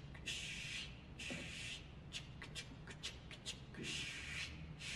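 Soft swishing hisses, about four of them at uneven spacing, with faint ticking clicks in between, played as a sewing sound effect while the animals sew the kimono.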